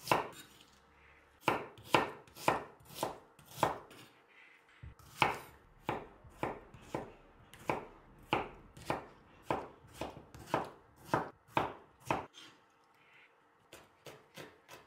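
Chef's knife slicing red onion and tomato, then chopping garlic, on a wooden cutting board. Steady knocks of the blade on the board come about two a second, with a few short pauses, and turn into quicker, lighter taps near the end.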